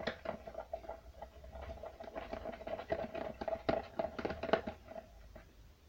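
A spoon stirring and scraping around a pot, mixing glue, shaving foam, boric water and talc into slime: a run of irregular clicks and scrapes that thickens in the middle and eases off near the end.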